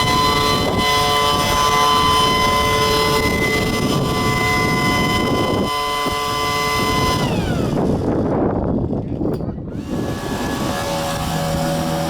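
Gas leaf blower engine and fan running at high speed with a steady whine; about seven seconds in its pitch slides down as the engine winds down, and a lower steady engine tone, like an idle, returns near the end.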